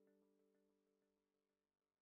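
Near silence: the last faint notes of background music fading out.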